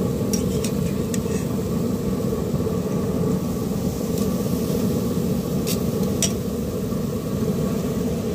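Metal tongs clicking sharply against a pellet grill's grate a few times as raw chicken breasts are laid on, over a steady low hum.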